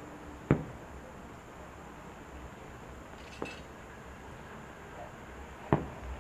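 Firework shells bursting: two sharp booms, one about half a second in and one near the end, and a fainter bang in between. Faint crackling of the stars comes just before the middle bang.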